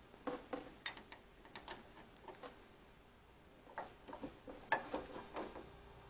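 Light metallic ticks and clicks of an Allen key being turned in the set screw of a door lever handle, as the handle is tightened onto its spindle. The ticks come in two short runs with a pause of about a second between them.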